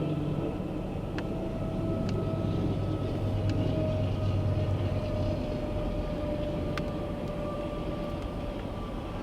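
A steady engine drone with a faint whine that slowly falls in pitch.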